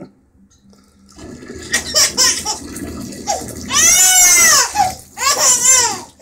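Water splashing and pouring into a bubble bath, with a toddler's two long, high-pitched laughing squeals that rise and fall, about four and five and a half seconds in.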